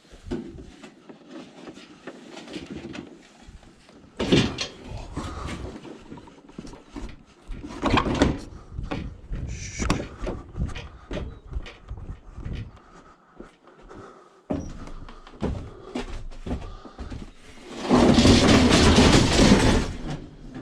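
Knocks and clatters of scrap being handled and loaded into a van, with a loud rushing noise for about two seconds near the end.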